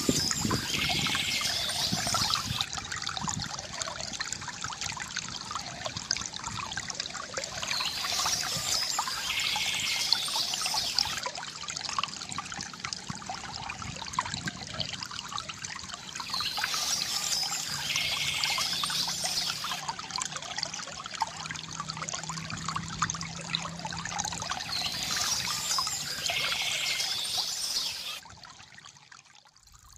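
Small stream trickling and splashing steadily, with a bird's song coming back about every eight seconds. The sound drops away sharply near the end.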